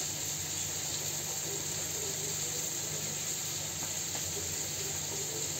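Steady background hiss with a low hum underneath and no distinct events.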